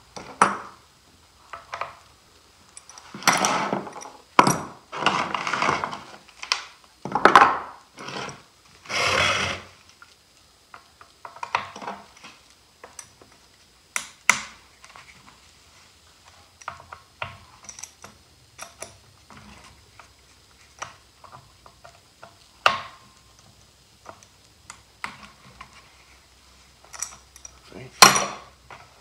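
Hand tools and RedMax stick-edger parts handled on a wooden workbench during disassembly: irregular clatters, clicks and knocks of metal and plastic. There is a run of longer, noisier handling sounds in the first ten seconds and a sharp knock near the end.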